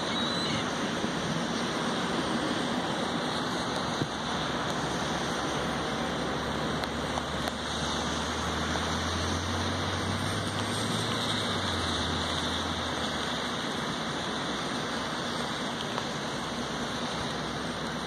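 Steady hiss of rain, with a low rumble swelling and fading in the middle.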